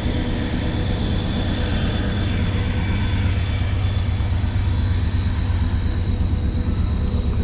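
A steady low rumble that builds slightly, with faint steady high tones above it and no distinct events.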